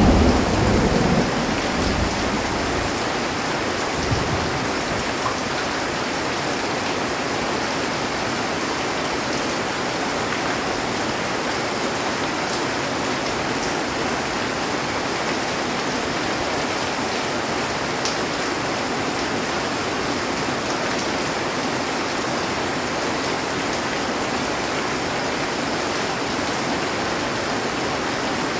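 Heavy rain falling steadily on a metal roof, with a low thunder rumble dying away in the first few seconds.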